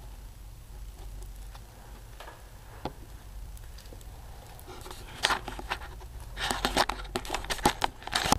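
A faint low hum with a few scattered clicks, then from about five seconds in a dense run of close clicks, taps and rustles.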